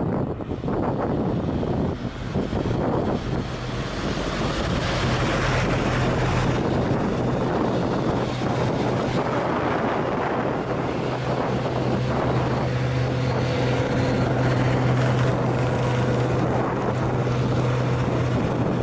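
A heavily loaded truck's diesel engine labouring up a steep grade in low gear, a steady low drone that builds over the first few seconds and then holds. Wind buffets the microphone at the start.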